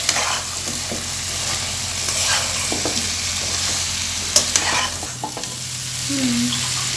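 A spatula stirring raw chicken feet into sizzling spice masala in a frying pan: a steady sizzle with irregular scrapes and clacks of the spatula against the pan as the feet are mixed in.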